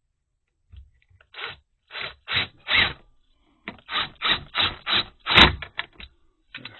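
A series of short scrapes and rubs as a part is pushed and slid back into place against a magnet that keeps grabbing it: a few spaced strokes, then a quicker run of about six, the loudest ending in a sharp click.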